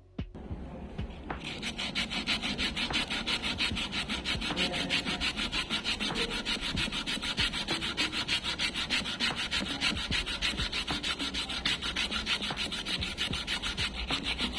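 Grit-80 silicon-carbide sandpaper on a wooden hand-sanding block rubbed across a wooden board in rapid back-and-forth strokes, several a second, starting about a second in.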